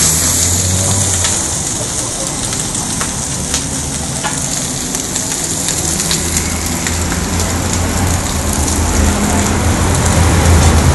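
Ham, meat and buns sizzling on a hot flat-top steel griddle, a steady frying hiss. A few light clicks and a low steady hum run underneath.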